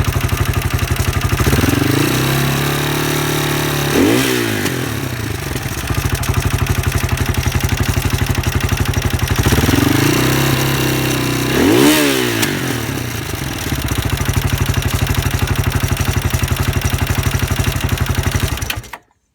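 Husqvarna SM 610 supermoto's single-cylinder four-stroke engine, fed by a Keihin FCR 41 carburettor, idling with a pulsing beat and revved twice, each time climbing for a couple of seconds to a peak and falling back to idle. The owner finds the engine's noise odd. The sound cuts off abruptly near the end.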